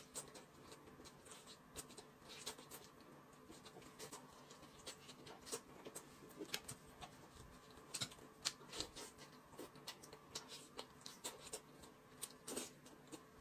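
Faint, scattered little clicks and smacks of someone eating a chicken leg by hand: chewing and pulling the meat off the bone.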